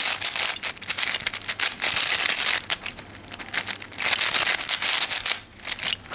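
Plastic 5x5 speed cube's layers being turned fast, a dense clatter of clicks and scrapes in bursts that ease off briefly about halfway through and again near the end. The layers are being forced hard to test whether the cube pops.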